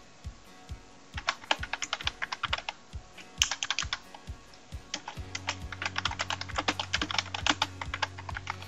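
Typing on a computer keyboard in quick runs of key clicks, starting about a second in, with a brief pause around the middle before the typing resumes.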